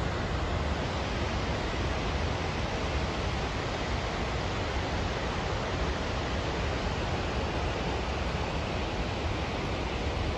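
Floodwater pouring from the full Clanwilliam Dam's spillway and churning down the river below: a steady rushing noise with a deep rumble underneath.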